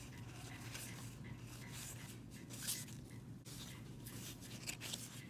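1991 Topps cardboard baseball cards being thumbed through and slid off a stack one by one: soft, irregular rubbing and flicking of card edges over a faint steady low hum.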